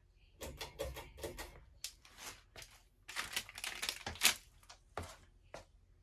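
A string of irregular clicks and knocks as someone switches a ceiling fan to medium speed and moves about in front of it; the loudest knock comes a little past four seconds in.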